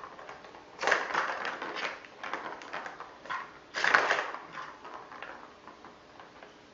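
Small plastic balls rattling and clattering around a plastic ball-track cat toy as kittens bat at them, in two busy bursts, about a second in and again near four seconds, with lighter clicks between.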